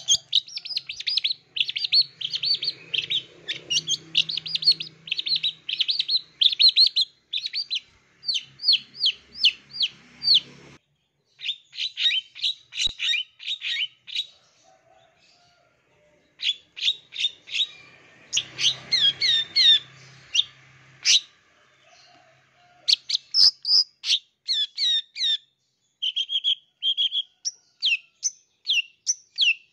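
Long-tailed shrike (cendet) singing: long runs of rapid, sharp, high chattering notes in bursts, broken by short pauses.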